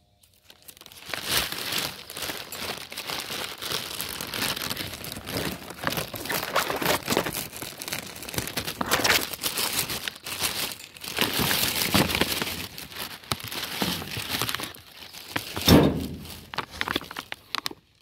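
Plastic bags crinkling and rustling as they are handled and rummaged through, with a loud thump near the end.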